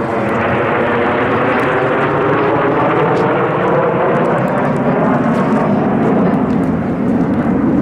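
Kawasaki T-4 jet aircraft with turbofan engines, loud and steady.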